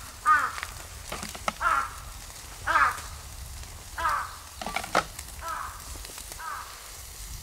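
A crow cawing over and over: about six harsh caws roughly a second apart, growing fainter toward the end. A few sharp clicks come between them.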